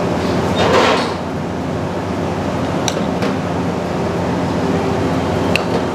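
Steady machine hum of a commercial kitchen, with a few sharp clicks of utensils and a short rush of noise about a second in.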